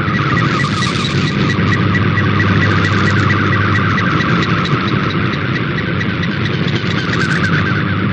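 MFSK digital data signal from a shortwave broadcast, a steady warbling data tone heard through receiver noise with a steady hum from local interference under it.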